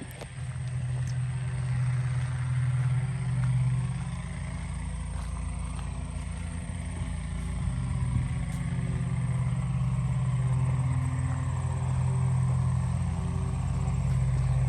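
A motor vehicle's engine running, a steady low hum that swells and fades a little.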